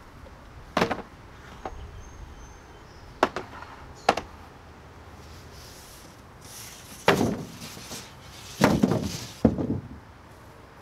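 Lumber knocking down onto plastic folding sawhorses: three separate wooden knocks in the first half, then louder clattering thuds about two-thirds through and again near the end as a large flat panel is laid across them.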